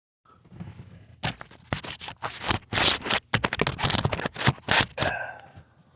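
Loud handling noise right on the microphone: a quick run of scrapes, rubs and knocks as the camera is moved and set in place, dying down about five seconds in.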